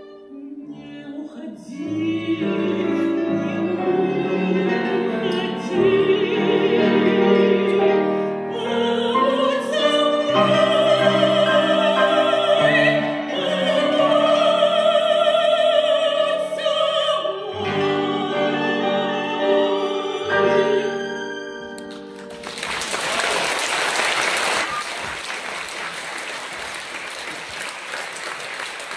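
Soprano singing a Russian romance with vibrato and long held high notes, accompanied by guitar, violin and piano. About seven seconds before the end the song finishes and the audience applauds.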